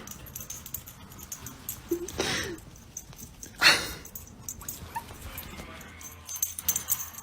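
A dog giving two short calls about a second and a half apart; the second is louder and sharper.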